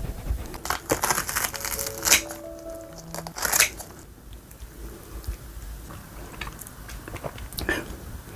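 Eating sounds close to the microphone: a quick run of sharp crunches and crackles in the first four seconds, then quieter scattered clicks and smacks.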